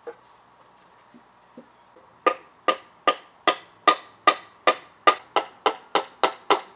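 Hammer driving nails into a scrap-wood planter box: a run of about sixteen sharp strikes starting about two seconds in, two to three a second and quickening slightly.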